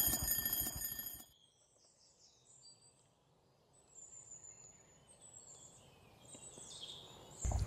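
Music with ringing chime-like tones ends about a second in, then faint birdsong of short high chirps over quiet outdoor air. A louder noise cuts in just before the end.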